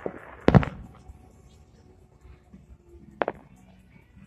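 Fireworks shells bursting in the air: a loud, deep boom about half a second in, then a sharper, lighter bang about three seconds later.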